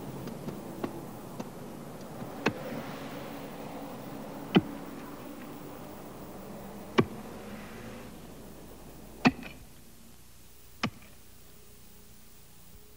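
Digging tools striking the ground in a run of sharp separate hits, about one every two seconds, as graves are dug open. The hits sit over a faint hiss that falls away near the end.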